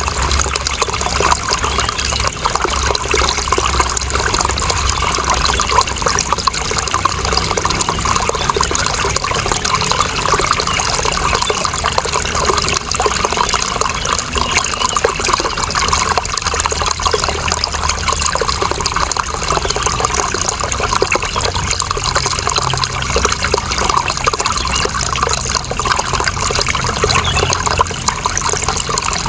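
Running water flowing steadily, an even splashing flow with no pauses or separate events.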